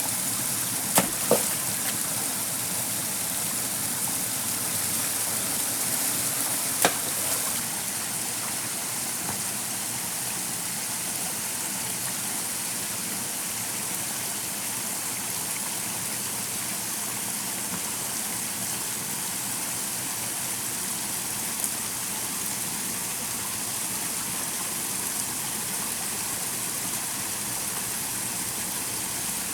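Stream water rushing steadily. A few sharp knocks stand out: two close together about a second in and one about seven seconds in.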